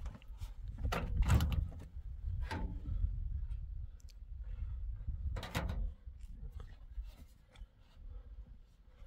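A few knocks and thuds, with a low rumble underneath that fades after about six seconds.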